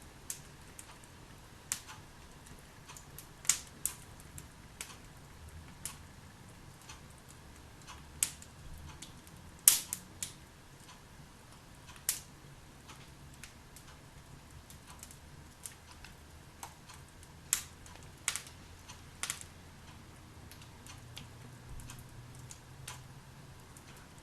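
Log fire in a fireplace crackling: irregular sharp pops and snaps over a faint steady hiss, the loudest pop about ten seconds in.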